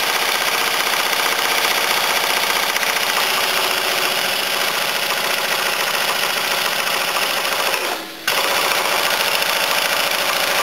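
Pneumatic impact wrench hammering rapidly and continuously on a very tight crankshaft pulley bolt that does not break loose. It stops briefly about eight seconds in, then starts hammering again.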